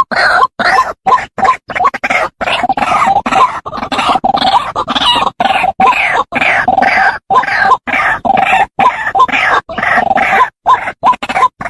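White-breasted waterhen calling: a fast, loud run of harsh, grunting calls, about three a second, separated by short gaps.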